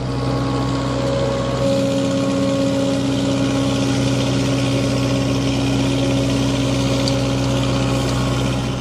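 A steady engine-like drone with a constant low hum and a noisy hiss over it, unchanging in pitch.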